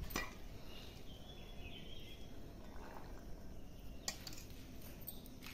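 Quiet background noise with a light click just after the start and another about four seconds in.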